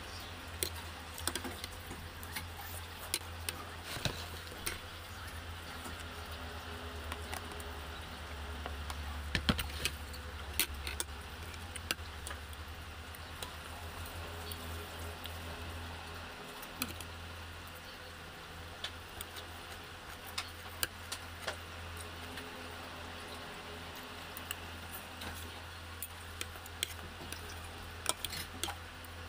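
Eating sounds: a fork and spoon tapping and scraping on a plate in scattered short clicks, with chewing, over a steady low hum.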